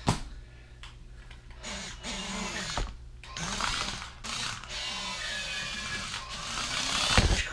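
Remote-control toy speeder bike's small electric motor and plastic gears whirring as it drives, the pitch of its whine sliding, with a loud knock near the end.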